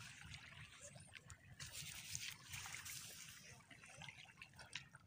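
Faint wash of water over beach gravel, a soft hiss swelling and fading, with small scattered clicks of stones.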